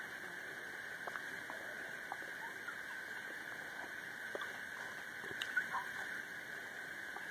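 Steady high-pitched insect buzzing from riverside trees, with a few faint clicks and short chirps scattered through it.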